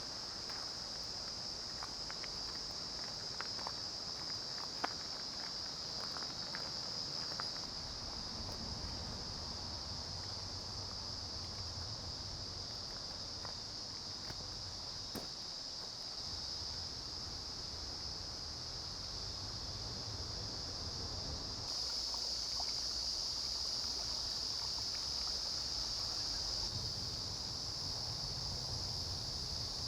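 Steady high-pitched drone of insects over the low, even rush of a mountain stream. A few faint clicks sound in the first several seconds, and the insect drone steps up suddenly about two-thirds of the way through.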